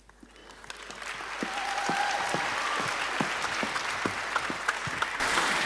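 Audience applauding: the clapping builds up over the first second and holds steady, with a louder surge near the end.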